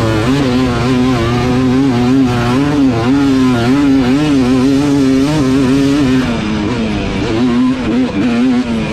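Race ATV engine running hard at high revs, its pitch rising and falling quickly with the throttle, dipping briefly about six seconds in and climbing again near the end.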